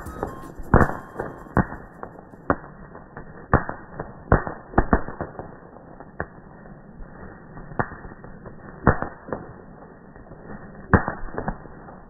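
Ground firework fountain spraying sparks: a steady hiss broken by about a dozen sharp, irregularly spaced pops.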